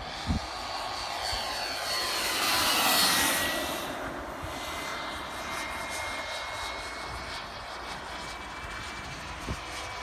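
Airplane flying past with its engine running, loudest about three seconds in, its pitch dropping as it goes by and then fading to a steadier, quieter drone.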